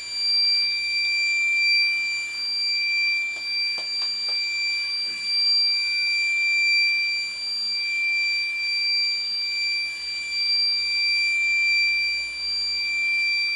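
A steady, unbroken high-pitched electronic tone from the MyFlyDream automatic antenna tracker's buzzer, sounding while the tracker rotates through its hard-iron compass calibration.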